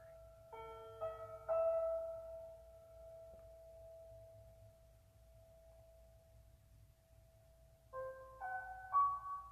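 Background music: slow solo piano. A few chords are struck about half a second apart near the start, then one note is held and fades away for several seconds before new notes are played near the end.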